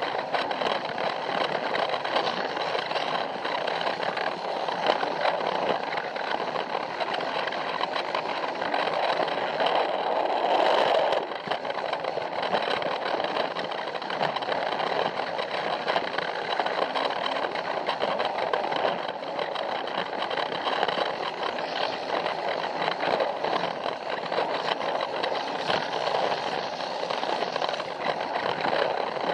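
Battery-powered Plarail toy train running on plastic track, heard from on board: a steady whirring rattle of its small motor and gears, with the wheels clicking over the track joints. It grows briefly louder about ten seconds in.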